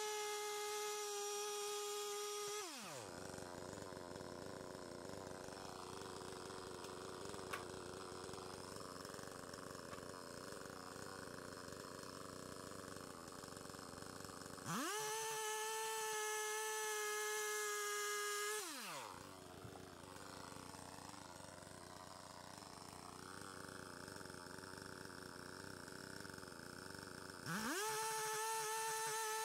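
Two-stroke chainsaw at full throttle, its pitch dropping sharply as it bogs down cutting through the top of a round wooden post. It revs free again for a few seconds, drops back into a second cut, and revs high again near the end.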